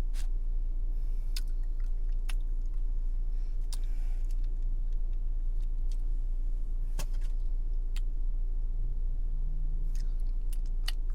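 Close-miked chewing of food, with scattered sharp mouth clicks, over a steady low hum.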